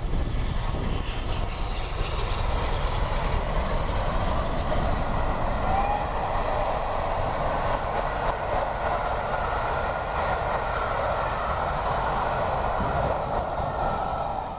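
Steam-hauled passenger train passing, double-headed by Peppercorn A1 Pacific 60163 Tornado and GWR King 6024 King Edward I: a steady rolling rumble of the locomotives and then a long rake of coaches going by on the track, growing fuller about halfway through.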